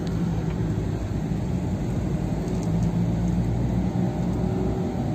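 Car driving along a city street, heard from inside the cabin: a steady low rumble of engine and road noise.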